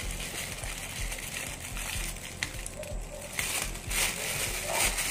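Clear plastic packaging bag crinkling as it is handled and turned over, louder in bursts past the middle and near the end.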